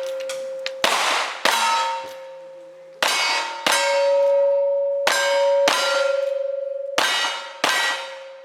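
Steel targets struck by gunfire, eight hits in four quick pairs about half a second apart, each plate ringing on with a long, bell-like tone that fades slowly.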